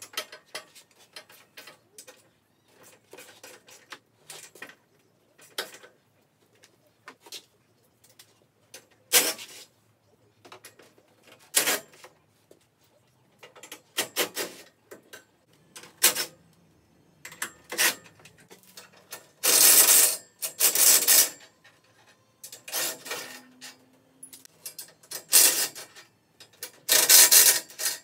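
Irregular clanks, clicks and rattles of tools and metal parts being handled while taking apart a utility vehicle, with louder bursts of clatter in the second half.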